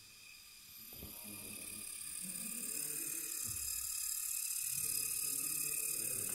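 Supertrino Mark II indoor aerobatic foam model airplane's small electric motor and propeller whirring with a high-pitched whine, growing louder from about a second in and then holding steady.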